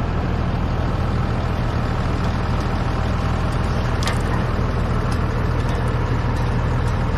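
A vehicle engine idling steadily, a constant low drone.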